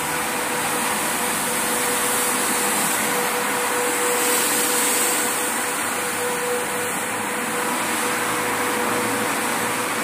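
Twin-head manual carpet washing machine running, its two motor-driven rotary brushes scrubbing a wet, soapy carpet: a steady motor hum with a constant whine over an even rushing noise.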